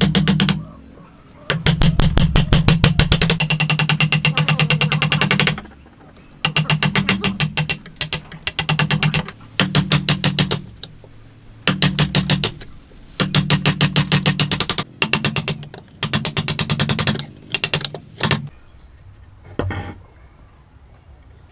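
A narrow saw blade cutting down into a wooden beam, in bursts of rapid rasping strokes lasting one to four seconds with short pauses between. Near the end come a few light knocks.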